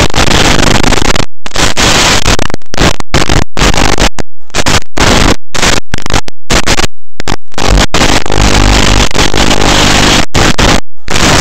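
Loud static hiss from an analog FPV video link's audio channel, cutting out abruptly to silence many times and coming straight back, with a low buzz under it at times.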